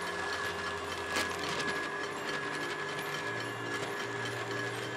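Tilt-head stand mixer running at high speed, its whisk beating egg yolks and sugar into a sabayon: a steady motor whir with a high steady tone. A faint tap about a second in.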